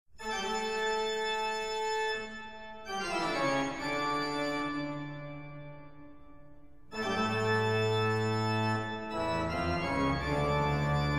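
Organ music of slow held chords, each sustained for a few seconds before the next chord comes in, with a fade between the second and third chords.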